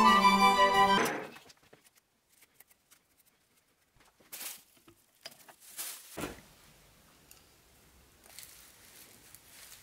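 Background music that cuts off about a second in, followed by faint handling sounds of a machined steel ball screw being taken from a milling vise and turned over in the hands: a few soft clicks and rustles, with a low knock about six seconds in.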